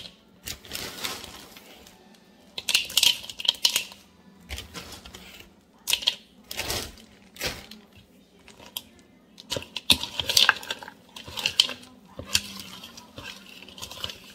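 Metal fork clinking and scraping against a mixing bowl in irregular bursts, folding frozen blueberries into stiff scone dough.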